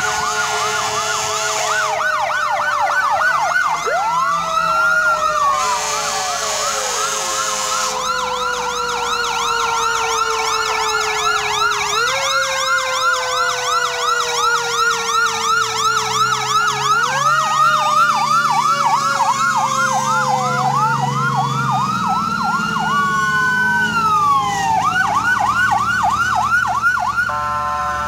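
Several fire truck sirens sound at once as the trucks pass: a fast warbling yelp sweeping rapidly up and down, overlapped by a slower wail that falls away and winds back up, about twice.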